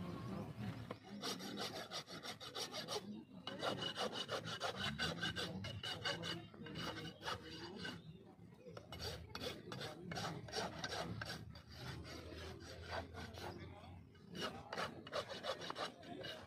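A farrier's steel hoof rasp being drawn back and forth across a horse's hoof wall, a rapid run of rough scraping strokes that stops briefly a few times before starting again.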